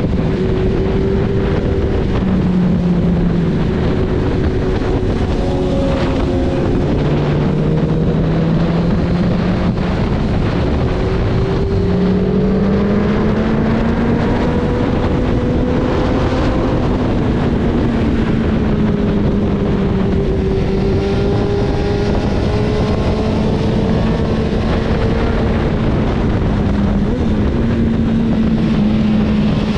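Honda CB1000R's inline-four engine running through a Yoshimura R77 full-system exhaust, heard from the rider's seat under way. The revs rise and fall slowly several times through the bends, over a steady rush of wind and road noise.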